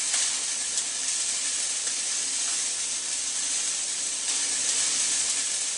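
Ground turkey, onions and jalapeño peppers sizzling steadily in a frying pan on a gas stove as they are stirred with a spatula.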